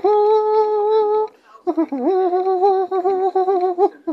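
A person's voice humming in long held notes: one steady note of about a second, then after a short break a slightly lower, wavering note of about two seconds.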